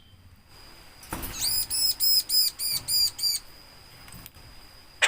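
Javan myna (jalak kebo) calling: a fast run of about eight repeated, arched high notes, about four a second, lasting roughly two seconds.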